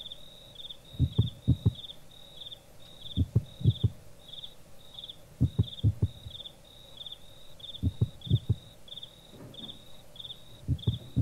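Low thuds in groups of three or four, each group about two seconds apart, over a steady, evenly repeating chirping of crickets.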